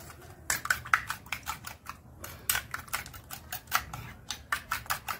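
A raw egg being beaten by hand in a small bowl: the utensil clicks rapidly against the bowl, about five strokes a second, with a brief pause about two seconds in.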